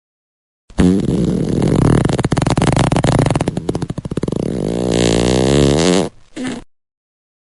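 Fart sound effect: one long sputtering fart of about five seconds, its pitch wavering near the end, then a short second fart.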